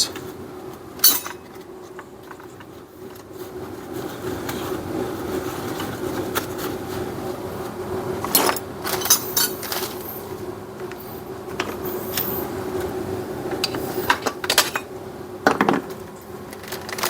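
Scattered metallic clinks and knocks of hand tools and small engine parts being handled on a workbench, with clusters of clatter about halfway through and again near the end, over a steady low hum.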